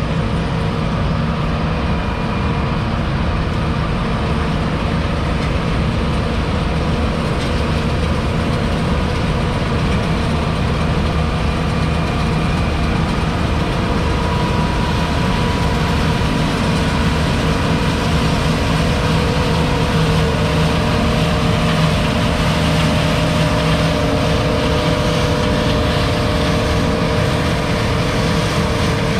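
John Deere S670 combine running under load as it cuts black beans and drives past: a loud, steady engine drone with a steady whine above it.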